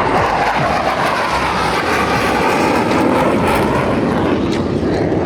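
F-16 Fighting Falcon single-engine jet flying past, a loud continuous jet noise with sweeping, bending tones as it passes.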